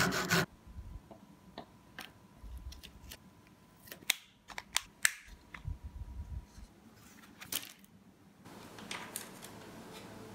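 Scattered small clicks and taps of popsicle sticks and bamboo skewer pieces being handled and cut, with soft knocks on the work surface and a couple of sharper clicks about four and five seconds in.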